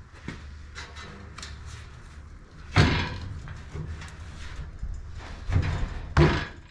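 A series of knocks and clanks: a few light clicks at first, a heavy knock about three seconds in, and two more heavy knocks close together near the end.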